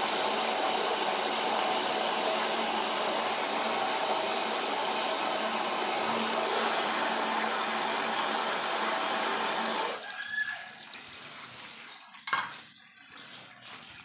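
Water gushing steadily into a toilet cistern as it refills, cutting off abruptly about ten seconds in; a couple of short knocks follow.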